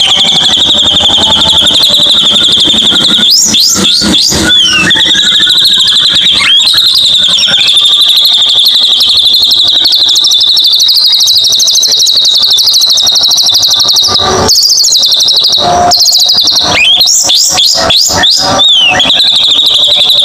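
Recorded white-rumped shama (murai batu) song used as a lure (pancingan) to trigger a caged shama that has stopped singing. Clusters of quick, sweeping whistled notes come about three seconds in, near six and a half seconds, and again around seventeen to nineteen seconds, over a steady high-pitched trill that runs through most of it.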